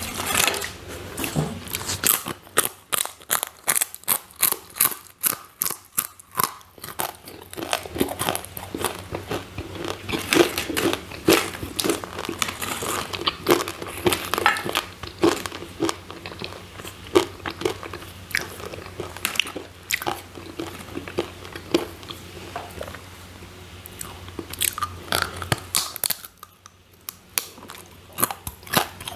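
Close-miked crunching and chewing of crispy sweet potato chips, sharp crackling bites coming in quick runs, with a short lull near the end.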